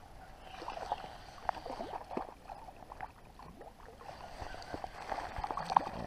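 Spinning reel being cranked to bring in a hooked brook trout, with irregular clicks and short splashy chirps. Near the end the fish thrashes at the surface, splashing the water.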